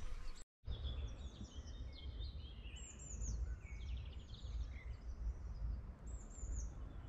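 Small songbirds chirping and singing in short, quick, falling phrases over a low rumble of wind on the microphone. The sound drops out completely for a moment about half a second in.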